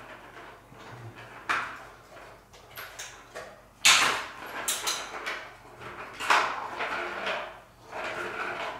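Cat play with a plastic circuit-track ball toy: a ball rolling and knocking about in the plastic track as a cat bats at it, a string of clatters and sharp knocks with the loudest about four seconds in.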